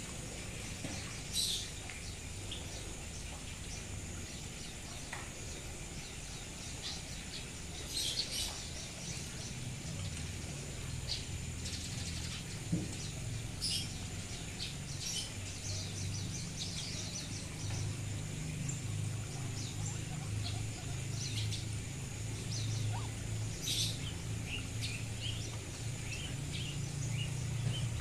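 Many short, high chirps and squeaks of small animals, scattered unevenly, over a faint steady high tone and a low hum that grows stronger about ten seconds in.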